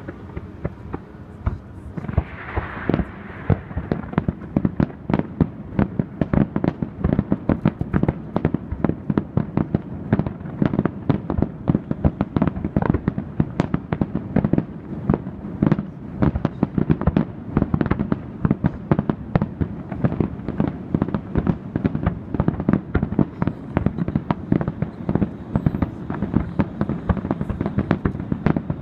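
A fireworks display: aerial shells bursting in a rapid, continuous barrage of bangs, several a second, with a brief hissing crackle about two seconds in.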